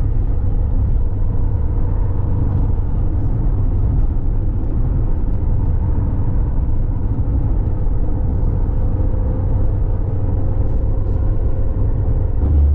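A motor vehicle running on the move: a steady low rumble with a faint, even hum.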